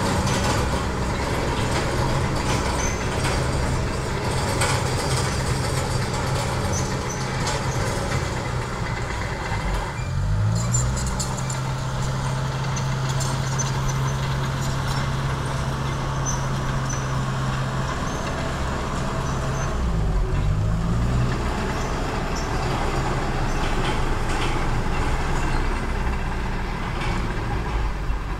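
Diesel engines of heavy construction machinery, an excavator and a crawler bulldozer, running steadily, their pitch rising about a third of the way in and dipping and rising again about two-thirds of the way through as the engines rev.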